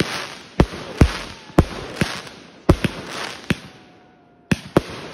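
Consumer fireworks going off: a fast series of about nine sharp bangs with a crackling hiss between them. There is a brief lull just before four seconds in, then two more bangs.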